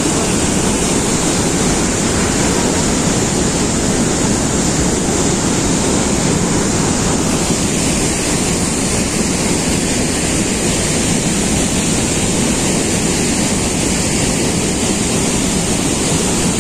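Loud, steady rush of Niagara's Bridal Veil Falls pouring down onto the rocks at the Cave of the Winds.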